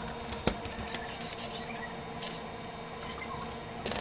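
Small loading motor of a Sony CDP-CE375 5-CD changer running with a steady whirring hum, with light clicks about half a second in and near the end. The motor spins without driving the tray mechanism, the sign of a faulty drive belt.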